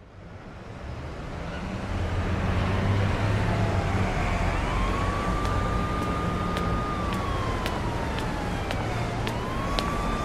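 City street ambience fading in over the first couple of seconds: steady traffic rumble with a siren wailing, its pitch sliding slowly down, then jumping quickly back up and holding, twice. Scattered sharp ticks come in from about halfway.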